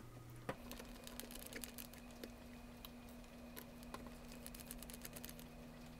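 Faint scattered clicks and ticks of small parts being handled at a camera lens's rear mount, over a low steady hum that starts about half a second in.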